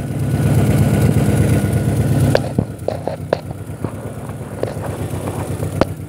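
Honda H22A four-cylinder engine idling steadily, louder for the first couple of seconds and then softer. A few sharp clicks come in the second half.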